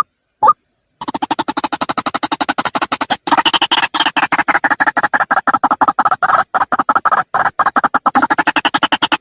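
White-breasted waterhen calling: a single call near the start and another half a second later, then from about a second in a long, rapid run of repeated notes, about ten a second, broken by a few brief gaps.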